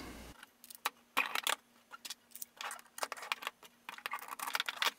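Irregular light clicks and taps of 3D-printed plastic clock-frame parts being handled, as rods are pushed into the printed front frame and set down on a wooden bench.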